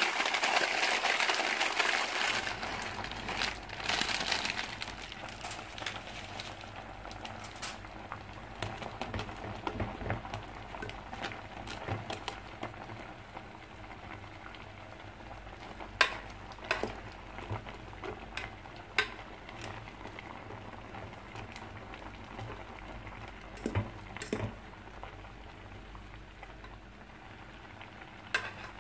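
Pot of water boiling as instant noodles are cooked in it, a loud surge of bubbling hiss for the first few seconds that settles into steady bubbling. A metal utensil clinks against the pot several times in the second half as the noodles are stirred.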